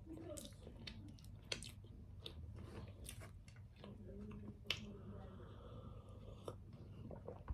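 Close-miked chewing of bread with small wet mouth clicks, then a sharp clink about two-thirds in as a tea glass is lifted, followed by a short sip of tea.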